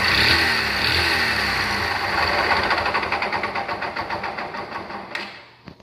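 Yamaha Factor 125's single-cylinder four-stroke engine running with the noise its owner takes for a knocking connecting rod, then switched off: the strokes slow and die out about five seconds in.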